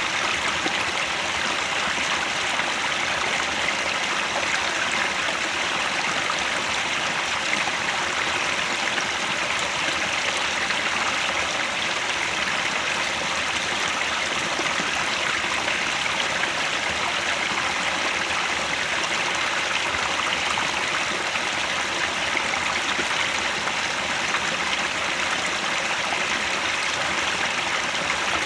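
Mountain stream near its source, water running and splashing over rocks in a steady rush.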